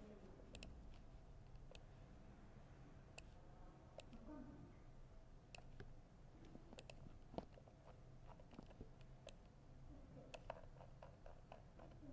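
Near silence with faint, irregular clicks of laptop keys being tapped, roughly one a second, over a low room hum.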